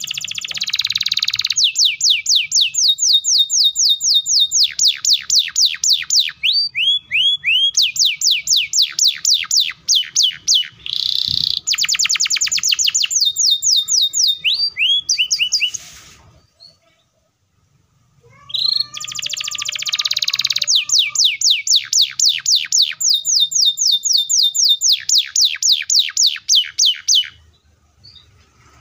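Domestic canary singing long, fast rolls of rapidly repeated, downward-sweeping high notes, phrase after phrase. The song breaks off for about two seconds a little past halfway, then resumes.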